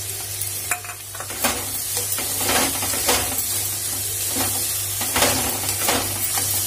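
Crumbled paneer and onion-tomato masala sizzling in hot oil in a metal kadai while a metal spoon stirs it, scraping and clinking against the pan several times.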